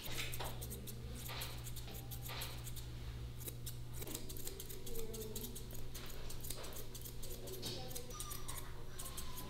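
Grooming scissors snipping through a Shih Tzu's long ear hair: short, crisp cuts at an irregular pace, a few every second, over a steady low hum.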